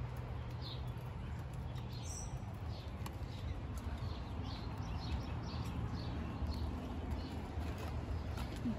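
Birds chirping: many short, high, downward-sliding chirps repeating on and off, over a steady low rumble.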